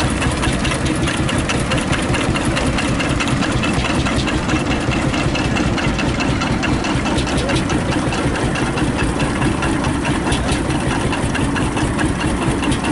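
Vintage tractor engine idling, a steady run of regular knocks.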